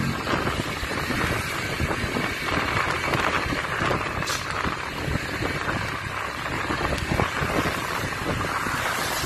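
Steady wind rush over the microphone and road noise from riding on a motorcycle.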